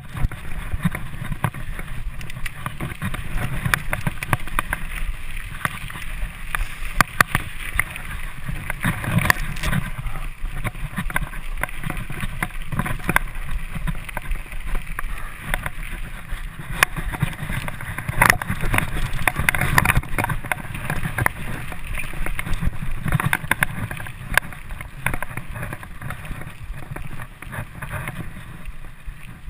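Mountain bike ridden fast over a dirt trail: a steady rumble of tyres and wind on the microphone, broken by frequent sharp rattles and knocks from the bike jolting over bumps. The sound eases and gets quieter near the end as the bike rolls onto smoother paved ground.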